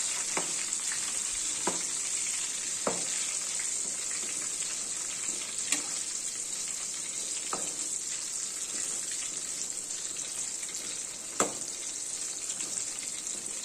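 Batter-coated green chillies (mirchi bajji) deep-frying in hot oil in a kadai, a steady sizzle. A metal spatula clicks sharply against the pan about six times as the chillies are turned, loudest near the end.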